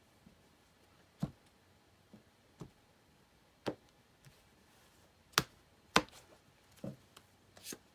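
A deck of tarot cards being cut into three piles and stacked back together on a cloth-covered table: about nine short, sharp taps and knocks as the card stacks are set down and squared, the two loudest close together a little past the middle.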